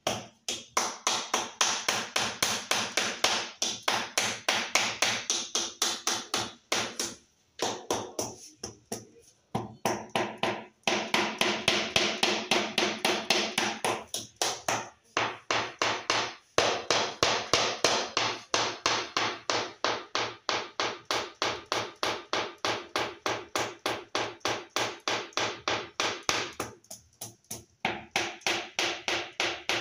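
Rubber mallet tapping a large floor tile down to bed it into fresh non-sag epoxy, in quick runs of dull knocks about four a second, with a few brief pauses.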